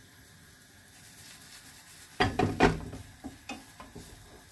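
Cookware clattering: a quick run of sharp clanks a little over two seconds in, followed by a few lighter taps.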